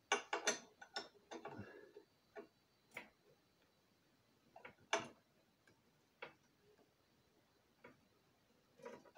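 Hand tools clicking against the metal parts of a high-pressure compressor head as bolts are loosened and snugged up: a quick run of sharp clicks at the start, then scattered single clicks.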